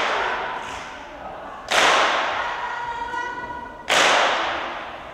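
Loud sharp percussive hits about every two seconds, each dying away slowly over faint sustained tones.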